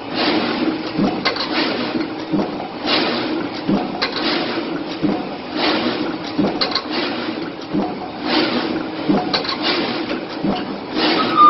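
Cardboard box-making machine running with a steady hum. It gives a sharp clack roughly every one to one and a half seconds as each hand-fed cardboard sheet goes through.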